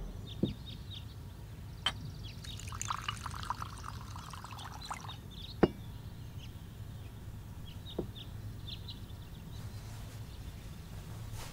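Tea poured from a small ceramic teapot into a cup for about two and a half seconds, with a few light clinks of porcelain on the table; the sharpest clink comes just after the pour ends. Faint bird chirps sound in the background.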